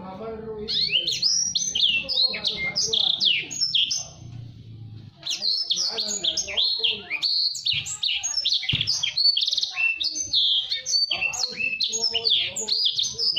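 Blacksang, a blackthroat × sanger hybrid songbird, singing fast, tightly packed runs of high chirps and trills. A short bout is followed, after a brief pause, by a longer one.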